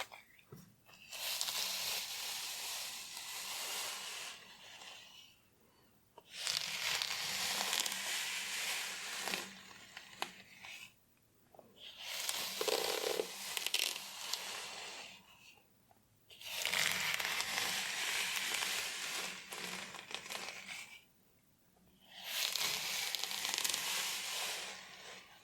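Scratching through hair and over the scalp, coming in five spells of a few seconds each with short pauses between.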